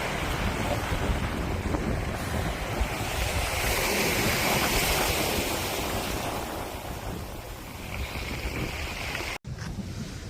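Strong wind gusting in a storm, a loud rushing that swells to its peak around the middle and then eases. The sound cuts off abruptly near the end and comes back quieter.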